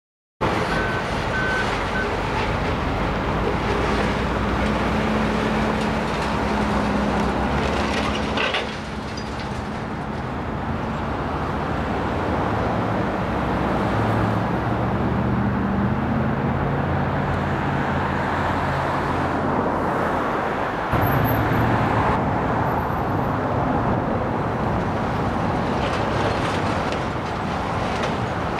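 Volvo tracked excavator's diesel engine working under load, its note rising and falling as the hydraulics drive the demolition grapple, over a steady noise of crunching building debris.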